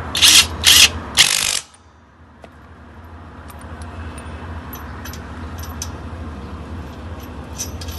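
Cordless impact wrench hammering on a car's wheel lug nut in three short bursts within the first second and a half. It then falls quiet apart from a few faint metallic clicks.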